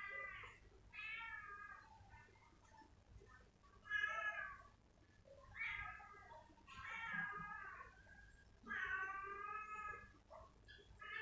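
A cat meowing over and over, about six drawn-out meows a second or two apart, some bending in pitch.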